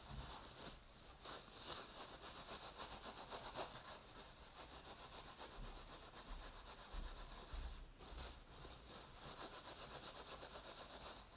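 Hands rubbing soapy wet wool through a mesh in wet felting, a quick steady swishing rub with a short break about eight seconds in. This is the flat rubbing stage, done while the wool is still soft and loose.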